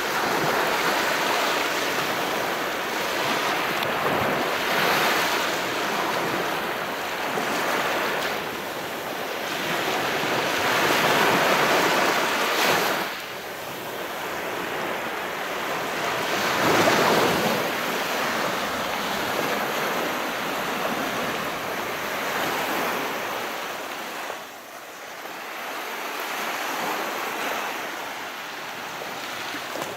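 Calm sea waves washing in: a steady rushing hiss that swells and eases every few seconds, one surge cutting off sharply about halfway through.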